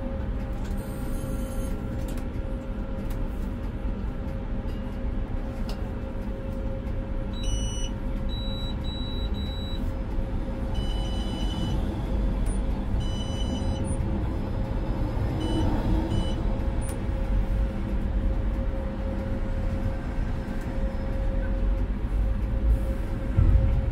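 Konstal 105Na tram heard from the driver's cab: a steady low rumble with a steady hum, broken in the middle by a run of short, high electronic beeps. The low rumble grows louder right at the end.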